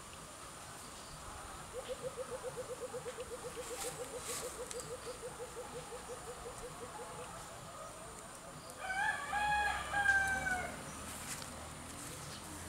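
A rooster crowing once, a single call of about two seconds that falls slightly in pitch near the end. Before it comes a fast run of low pulses, about seven a second, that fades over some five seconds.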